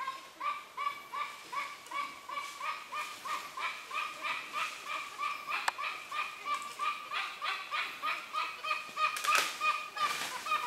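An animal calling over and over in a steady series, about three short calls a second, each one the same, with a single sharp click a little past halfway and a few louder calls near the end.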